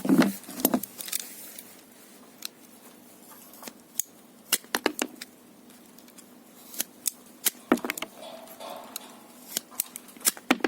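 Finland ratchet pruning shears cutting a dry branch in several squeezes. Sharp metallic clicks of the ratchet and blade come in small clusters, with quieter gaps between the strokes.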